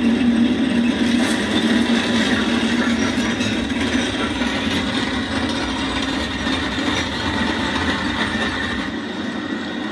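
Tank rolling on its tracks, a steady mechanical rumble and clatter from a war film's soundtrack, heard through a TV's speakers.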